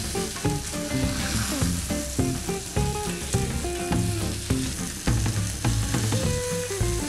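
Chicken breasts sizzling steadily in hot oil in a cast iron pan as they sear, with background music playing over it.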